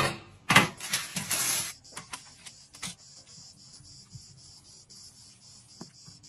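Wooden spoon scraping through thick risotto, loud and wet for about the first two seconds, then a few light clicks. From about three seconds in, a steady high insect buzz carries on, with faint taps of the spoon spreading the rice on a metal baking tray.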